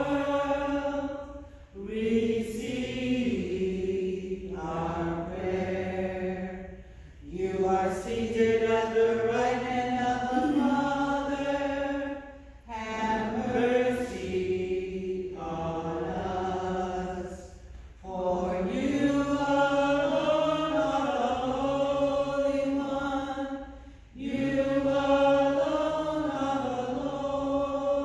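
Voices singing a chant-like sung part of the Mass in phrases of about five seconds each, with short pauses for breath between them.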